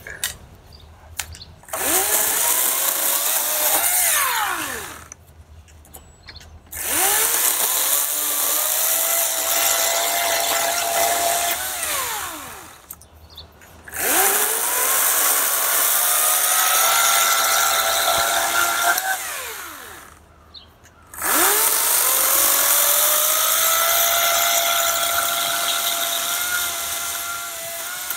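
EGO 56V cordless 14-inch chainsaw bucking a log: the electric motor whines up to speed, runs steadily, then winds down with a falling whine, four times over. The runs are separated by short pauses.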